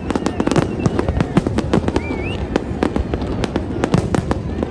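Fireworks going off in quick succession: a dense, irregular run of cracks and bangs, with a short rising whistle about two seconds in.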